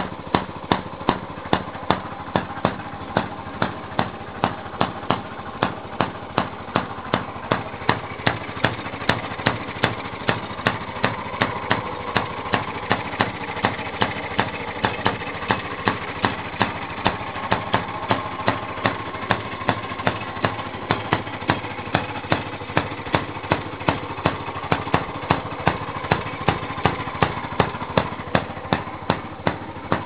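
1917 Maytag Model 43 washer's single-cylinder gas engine running steadily, with sharp, evenly spaced beats about twice a second.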